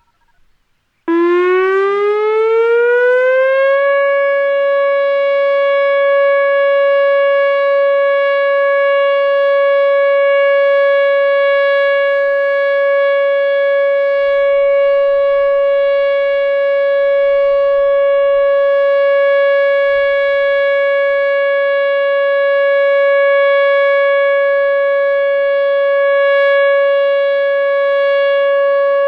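Whelen OA-3 outdoor warning siren sounding its steady alert signal. It starts about a second in, rises in pitch for about three seconds, then holds one steady tone.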